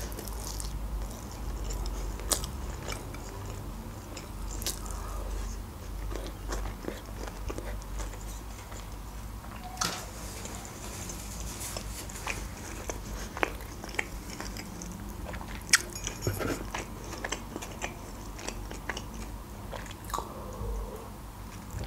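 Close-miked chewing and mouth sounds of someone eating a sushi roll, with many small wet clicks scattered throughout. Near the end comes a sip from a cup.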